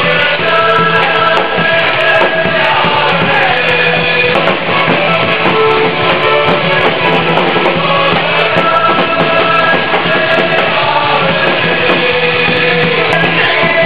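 Loud music with singing, made of many sustained tones held throughout.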